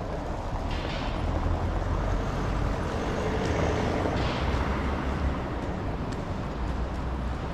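Outdoor street noise: a steady low rumble that swells a little through the middle.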